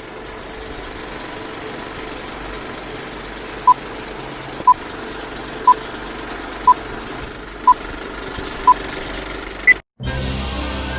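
A steady engine-like drone under a countdown of six short beeps, one a second, then one higher-pitched beep. The sound then cuts out briefly before music starts.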